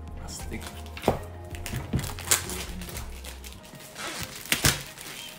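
Background music with a repeating bass line that drops out a little over halfway through, over the handling of a shrink-wrapped cardboard box: about five sharp knocks and some crinkling of the plastic wrap.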